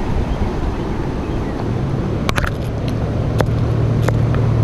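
Boat motor running, a steady low hum that comes in about one and a half seconds in and grows louder, with a few sharp clicks over it.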